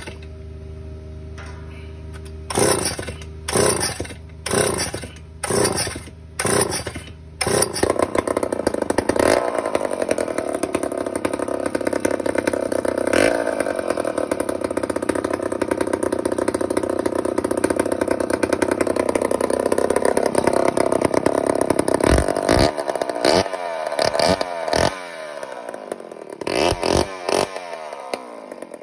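Vintage Poulan S72 two-stroke chainsaw, power head only, being pull-started on choke. Several quick yanks of the starter cord come about a second apart, then the engine catches about eight seconds in and runs steadily on its own fuel now that the blocked fuel line has been replaced. Near the end the engine speed rises and falls a few times.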